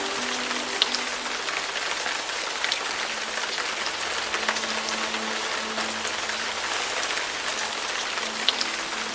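Steady rain falling, an even hiss with scattered sharp drips.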